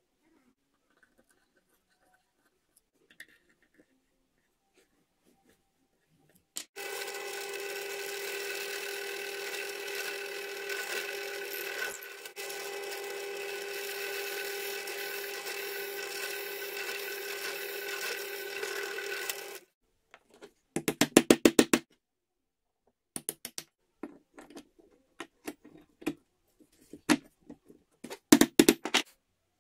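Benchtop drill press running steadily for about thirteen seconds as it drills a handle block, then stopping abruptly. After it come a quick run of sharp clicks, then scattered knocks and another rapid burst of clicks near the end, louder than the drill.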